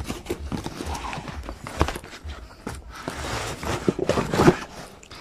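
A long cardboard box being opened by hand: the flaps rustle and scrape, with irregular knocks and taps.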